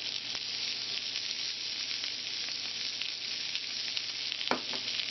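Seasoned chicken breasts sizzling in a frying pan: a steady hiss with small crackles, and one sharper click about four and a half seconds in.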